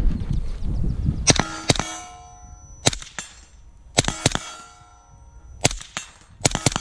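Suppressed 5.56 AR-15 rifle (Geissele Super Duty with a Surefire RC2 suppressor) fired in quick strings: about nine sharp reports, several in pairs, with steel targets ringing after the hits.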